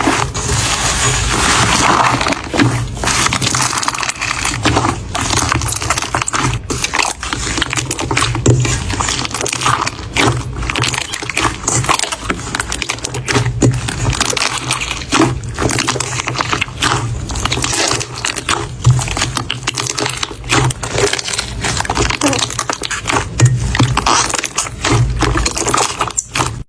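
Slime being squeezed and pressed, giving a dense run of wet crackles, pops and clicks.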